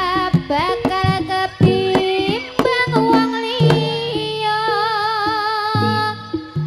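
Live jaranan ensemble music: a high, wavering melody line held over sharp hand-drum strokes in a steady rhythm.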